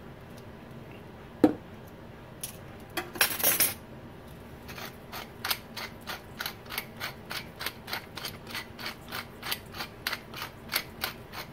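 A metal measuring spoon knocks once against a stainless steel bowl, and a short rattle follows. Then a hand-twisted spice grinder ratchets steadily, at about three clicks a second, as it grinds into the bowl.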